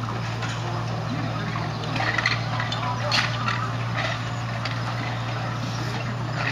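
Pool replastering work: a steady low machine hum runs throughout, with a few short scraping strokes of trowels on wet plaster about two and three seconds in, and faint voices.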